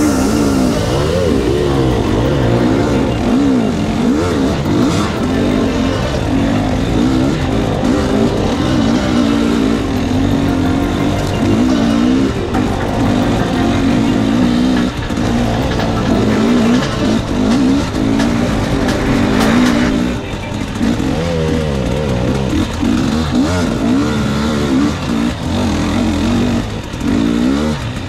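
Enduro motorcycle engine revving up and down continuously, its pitch rising and falling again and again as the throttle opens and closes.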